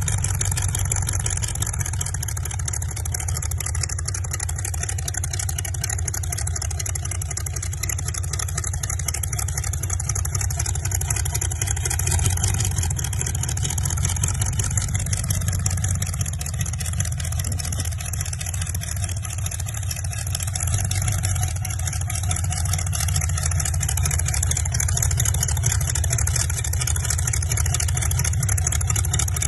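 Modified Holden Statesman's engine idling with a steady low rumble while the car creeps forward at walking pace.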